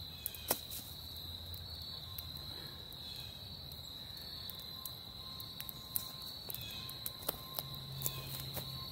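Crickets trilling steadily in a high, even chorus, with a few scattered sharp crackles from a small wood campfire.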